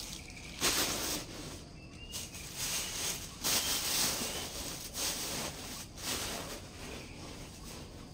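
Rustling of a black handbag being handled and opened, in several short noisy bursts, the loudest about half a second in and about three and a half seconds in.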